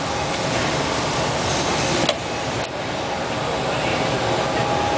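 Royal Master Generation 5 CNC centerless grinder running: a steady machine noise with a faint held tone, and a single sharp click about two seconds in.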